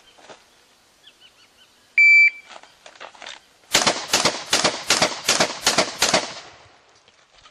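A competition shot timer gives one short beep; about a second and a half later a shotgun fires birdshot in a rapid string of about ten shots, roughly three a second.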